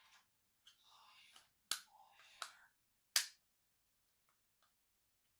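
Hands handling a cordless phone handset: soft rustling and three sharp clicks about a second apart, the last one the loudest, then only a few faint ticks.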